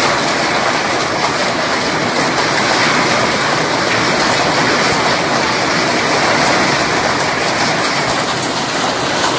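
Hail and rain pelting down hard in a dense, steady rush of noise with no let-up.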